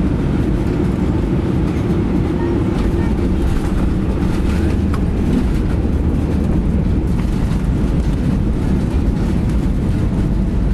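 Steady low rumble inside an Airbus A319 cabin during the landing rollout, the engine noise and the wheels running on the runway, with no change in level.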